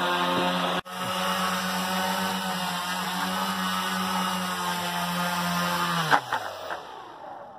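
A bicopter's two EMax motors and propellers drone at a steady pitch while it flies, with a momentary break just under a second in. About six seconds in there is a sharp hit, and the motor drone falls in pitch and fades as the propellers spin down, which fits the craft striking the ground.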